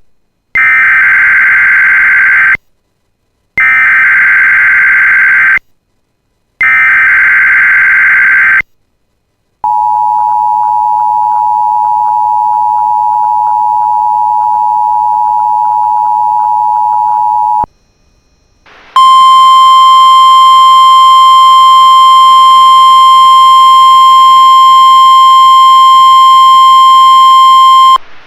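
Emergency Alert System activation for a test tornado warning. It opens with three screechy bursts of SAME digital header data, each about two seconds long and a second apart. Next the two-tone EAS attention signal holds steady for about eight seconds. After a short pause a single steady alert tone, the NOAA Weather Radio warning alarm tone, sounds for about nine seconds and cuts off sharply.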